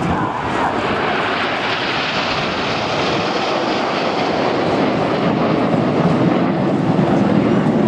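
Aircraft in flight: steady engine noise that grows slightly louder toward the end.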